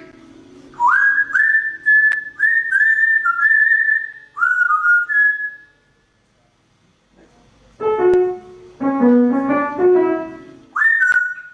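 A pet bird whistling a tune in clear, high single notes, each sliding up into pitch. It trades phrases with a short run of notes on a keyboard instrument about eight seconds in, and whistles again near the end.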